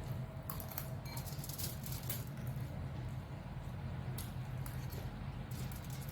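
Close-miked eating sounds: chewing with scattered wet clicks and smacks at irregular moments, over a steady low hum.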